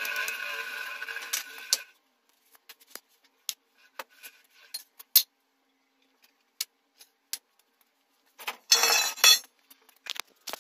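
Metal parts clinking and knocking as they are handled and set down on a stone floor: a denser rattle for the first two seconds, scattered sharp clicks after, and another rattling burst about nine seconds in.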